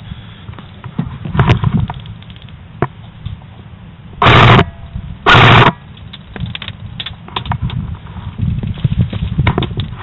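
Two short bursts of full-auto fire from an airsoft electric gun, very loud on the mount-close microphone, about a second apart, with scattered clicks and knocks around them.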